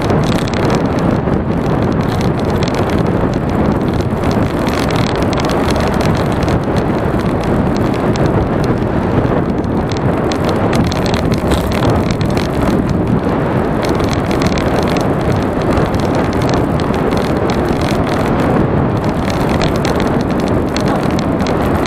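Steady, loud wind rush buffeting the action camera's microphone while riding along the road, with road noise underneath.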